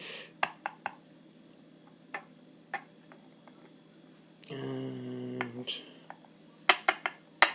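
Small metal clicks and taps from the pins and core of a gutted Asec 5-pin euro cylinder lock being handled, a few scattered light ticks and then sharper clicks near the end.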